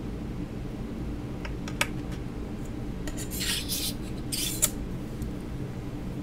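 Polymer clay sheets and tools handled on a work surface: a few light clicks, then two short scraping rubs past the middle, the second ending in a sharp click, over a steady low hum.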